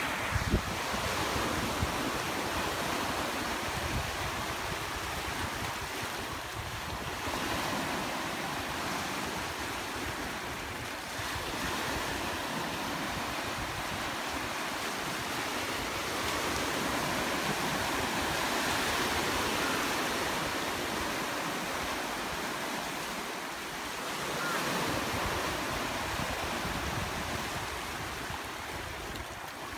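Sea surf washing over and around a line of rocks and concrete blocks: a steady rushing that slowly swells and eases, with some wind on the microphone. Two brief knocks near the start.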